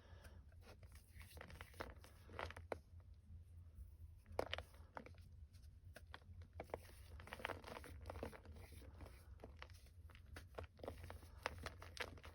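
Reformed gym chalk being crushed: faint, scattered crunches and crackles, with a few sharper snaps.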